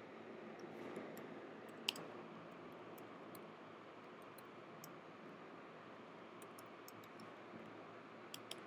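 Computer keyboard typing: faint, scattered key clicks over a low, steady room hiss, the sharpest click about two seconds in and a few more near the end.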